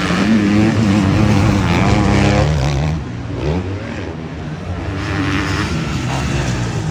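450cc four-stroke motocross bike engines revving hard on a dirt track, the pitch rising and falling with the throttle. The sound drops suddenly about three seconds in and then builds again.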